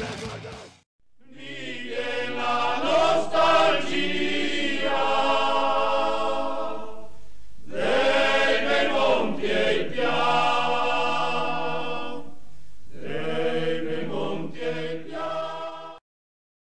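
A loud punk track breaks off within the first second, then a choir sings a slow chant in three long held phrases, cutting off suddenly near the end.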